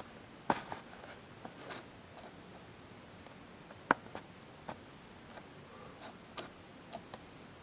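Scattered light taps and clicks of fingers handling an iPhone on a wooden desk, with one sharper click about four seconds in.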